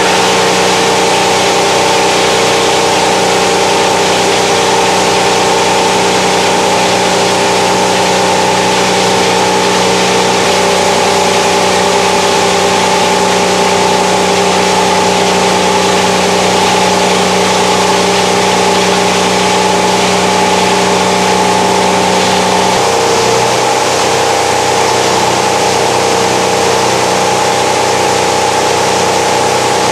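Plastic-recycling washing-line machinery running: an inclined screw conveyor lifting wet plastic flakes, with its electric drive motor and the plant around it. It makes a loud, steady hum with several held tones over a noisy rush. About 23 seconds in, the lowest tone drops out and the hum changes.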